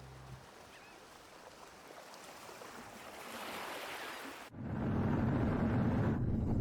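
A rushing noise wash that swells and then cuts off abruptly about four and a half seconds in, giving way to a louder, deep rumbling noise.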